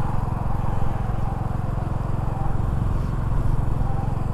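Motorcycle engine running steadily while riding, with a low, even engine note and a haze of wind and road noise.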